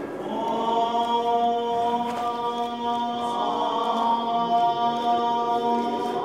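Chanted vocal music: long, steady held notes sung as a mantra-like drone, with several tones sounding together. The new held notes begin just after the start and sustain throughout.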